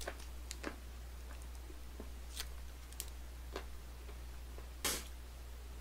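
Plastic takeout food tray being handled: scattered light clicks and taps, with one short louder rustle about five seconds in, over a steady low hum.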